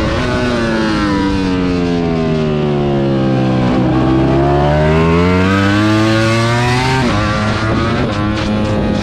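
Ducati Panigale V4 R superbike's 998 cc V4 engine at speed on track: the revs fall steadily into a corner, rise again as the bike drives out, then drop suddenly about seven seconds in with an upshift before climbing on in the next gear.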